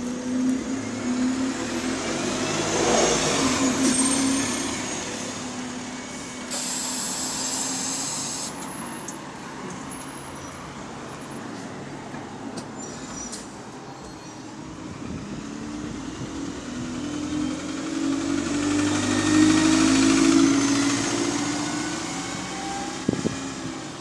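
Single-deck bus engine running and pulling away from a stop, an engine that is said to have a rod knock, with a short hiss of air about seven seconds in. Road traffic follows, loudest about 18 to 21 seconds in as another large vehicle goes by.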